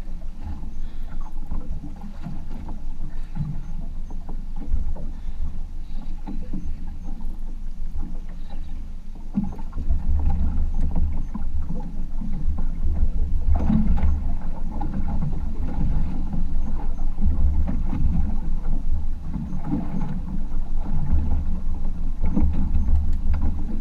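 Wind buffeting the microphone over water sloshing against a drifting boat's hull, a steady low rumble that swells in patches.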